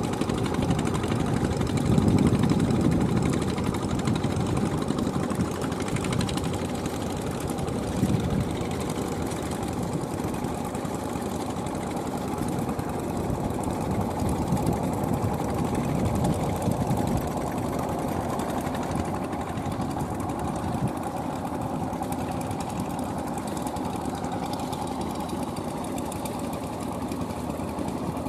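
Small two-wheel hand tractor's single-cylinder diesel engine running steadily under load while its steel cage wheels drag a leveling board through the muddy rice paddy.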